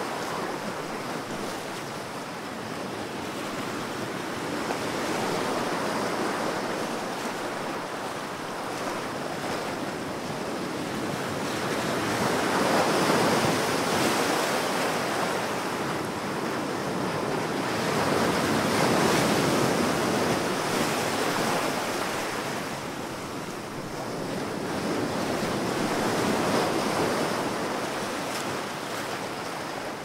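Ocean surf: waves breaking and washing in as a steady rush that swells and eases in slow surges every six or seven seconds.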